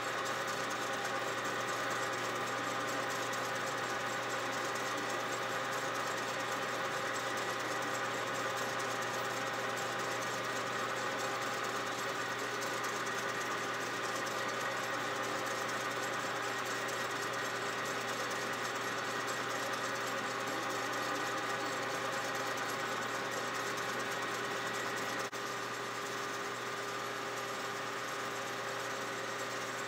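Metal lathe running steadily, its spindle and chuck turning at speed, giving a constant gear hum with several steady whining tones. The level drops slightly about 25 seconds in.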